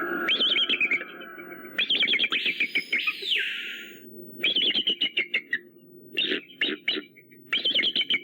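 Bird of prey, eagle or hawk, giving rapid chattering calls: five runs of quick repeated high notes. A short hiss comes about three seconds in, over a faint steady low hum.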